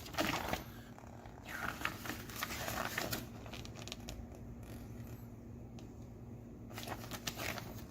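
Paper instruction manual being handled and leafed through: a few soft crinkling rustles of paper with quieter stretches between.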